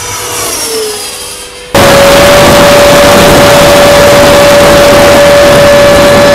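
Electric ducted fan of a radio-controlled jet. First a brief pass heard from the ground, its whine dipping slightly in pitch as it goes by. From about two seconds in, a loud steady fan whine under heavy wind rush, heard from a camera mounted on the model's fuselage.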